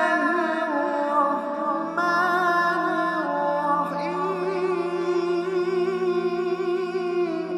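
Vocal music: a voice sings long, wavering held notes over a steady low drone, starting a new phrase about two seconds in and again about four seconds in.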